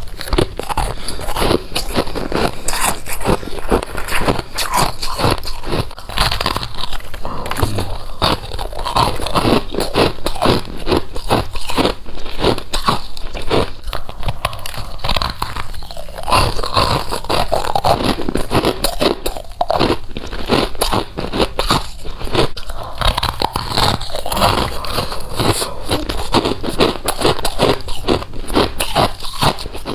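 A person biting and chewing frost, with dense crunching bite after bite throughout.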